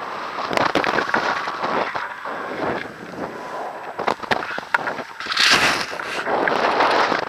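Wind buffeting the microphone of a harness-mounted camera on a paraglider in flight: an uneven rushing in gusts, with crackling clicks, and one strong gust about five and a half seconds in.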